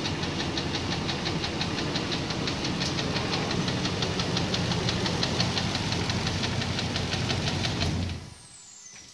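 Nissan VK56DE 5.6-litre V8 running steadily with a fast, even ticking knock, several a second. The engine is shut off about eight seconds in and the sound drops away.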